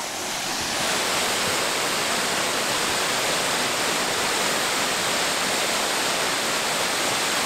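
Tortum Waterfall, a large waterfall, heard from close beside it: a steady rushing of falling water that swells over the first second and then holds even.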